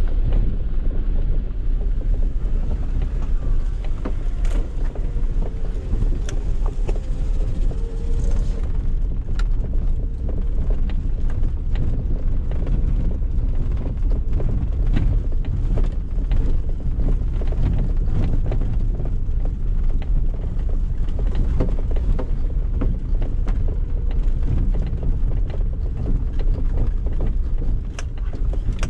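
Inside the cabin of a 2013 Suzuki Jimny SZ4 driving slowly over a rutted, washed-out dirt track: a steady low rumble from its 1.3-litre inline-four engine and tyres, with frequent short knocks and rattles as the car jolts over the rough ground.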